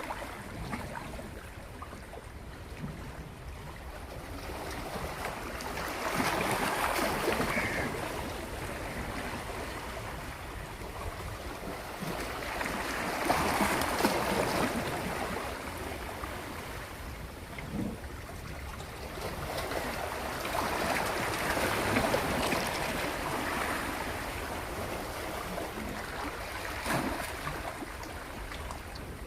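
Sea water washing in slow swells, surging about every seven seconds, over a steady low wind rumble on the microphone.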